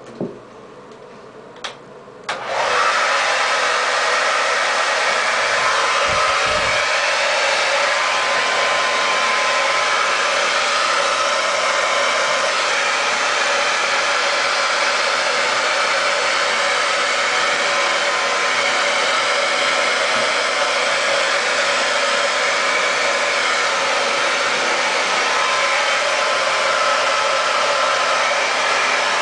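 A couple of clicks, then a handheld hair dryer switches on about two seconds in and runs steadily, blowing on a small wet puppy's fur.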